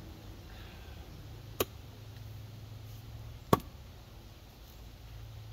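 Two axe blows biting into a dry-ish red maple log, about two seconds apart, the second louder: a 6-pound Council Tool FE-6 axe chopping on a standing block.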